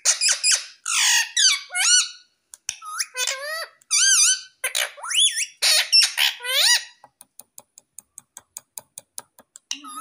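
Rose-ringed parakeet calling in shrill, quick squawks and chatter that bend up and down in pitch, several in a row. About seven seconds in, the calls give way to a run of quick, even clicks, about five a second.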